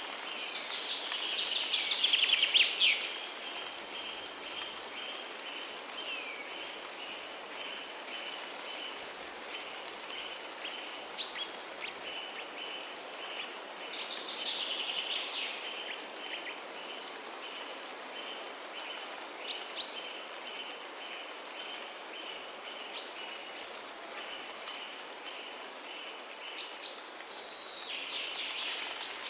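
Birds singing in several busy bursts, with short single calls between them. Underneath are a fast, even, high-pitched chirping repeated throughout and a steady hiss like light rain.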